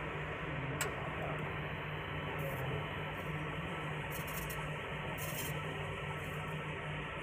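Fiber laser marking machine running as it engraves lettering onto a black cylinder: a steady low hum, with four short spells of high hiss during the marking.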